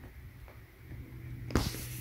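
A British Shorthair cat in heat rolling and rubbing on carpet: light ticks and shuffles, then a loud scuffing rustle about one and a half seconds in as she twists against the carpet by a chair leg. A steady low hum runs underneath.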